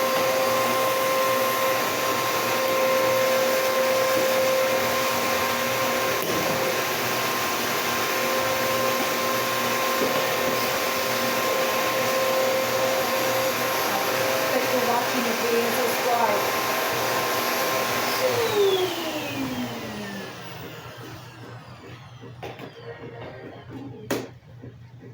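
Bissell PowerForce Bagless 6583 vacuum cleaner running with a steady whine, then switched off about three quarters of the way through, its motor winding down with a falling whine. A few light clicks follow near the end.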